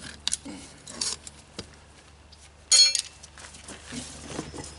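A few light knocks, then, a little under three seconds in, a short ringing metal clank: metal tools and parts being handled.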